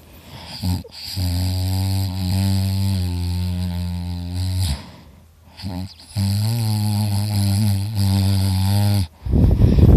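A person snoring hard and loud: two long droning snores, each about three to four seconds, then a rough, noisier breath near the end.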